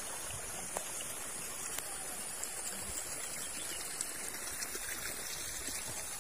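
Steady flowing water, like a small stream, with a high even hiss above it and a few faint light clicks.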